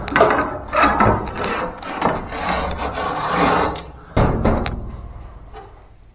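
Rustling and rubbing handling noise, with scattered clicks and scrapes, from a person moving about with a body-worn camera. A heavy thud comes a little after four seconds in and dies away.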